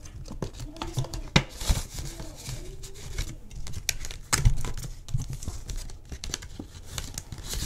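Clear plastic envelope pages of a ring binder being flipped and rustled by hand, with paper banknotes crinkling and many small clicks and taps.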